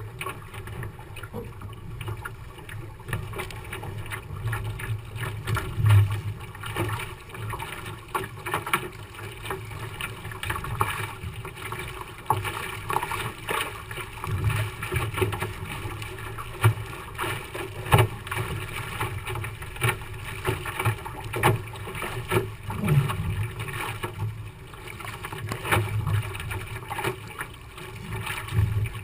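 Water rushing and splashing past the hull of a Moth sailing dinghy under way, with wind on the microphone and occasional sharp knocks from the boat.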